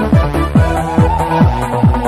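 Electronic dance music with a steady kick drum, about two beats a second, under held synth tones.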